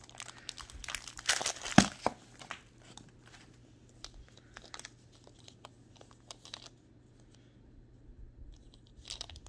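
Thin plastic wrapper crinkling and tearing as it is pulled off a plastic Poké Ball toy. The crinkling is busiest in the first two seconds or so, with one sharp snap just under two seconds in. After that come scattered light clicks and taps of the hard plastic ball being handled, which die away, with a few more near the end.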